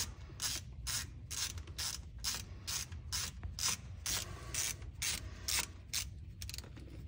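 Ratchet wrench driving a bolt into a transfer case adapter, its pawl clicking in short runs about twice a second as the handle is swung back and forth.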